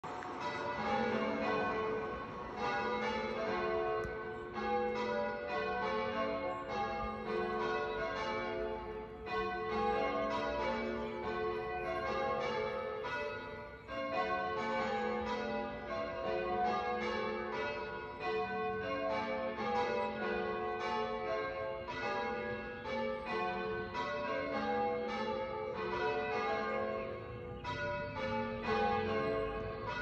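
Church tower bells rung one after another in a quick, unbroken sequence, each strike ringing on under the next.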